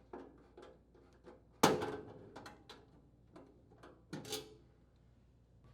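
Nut driver working out the sheet-metal screws that hold the furnace blower assembly's mounting rails: a string of light clicks and scrapes, with a sharper knock about a second and a half in and another near four seconds.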